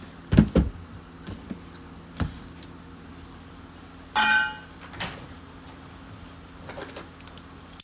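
Handling of a trading-card hobby box being opened: a few soft knocks and clicks, and a short squeak about four seconds in.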